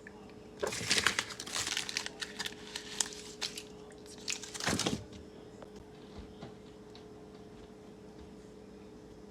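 Packaging crinkling and rustling as it is handled, a run of crackles and scrapes lasting about four seconds, then stopping and leaving a faint steady hum.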